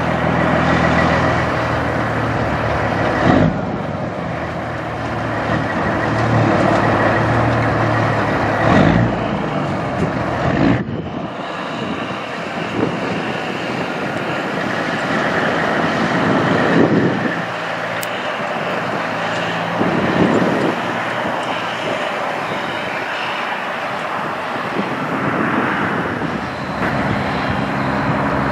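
Diesel engines of Kenworth semi trucks running as the trucks pull slowly through, one after another. The sound drops out for an instant about eleven seconds in, and another truck follows.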